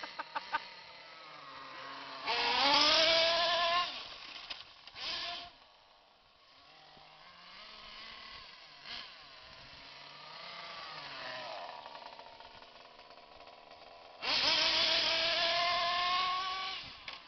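Radio-controlled Mercedes DTM model car driving and accelerating, its motor giving a rising whine. There are two loud runs, a short one about two seconds in and a longer one from about fourteen seconds in, with fainter running in between.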